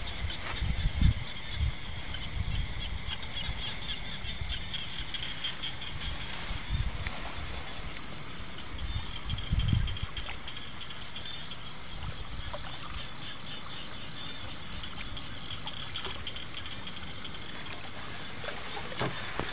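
A steady, high, rapidly pulsing trill of night-calling creatures, with a few low thumps and rustles close by near the start and again about ten seconds in.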